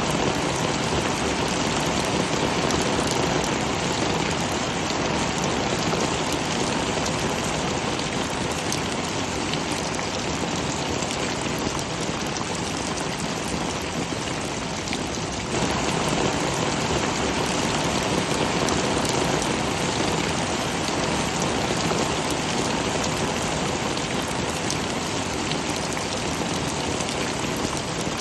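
Heavy rain falling steadily, a dense even wash of drops, with a small sudden jump in loudness about halfway through.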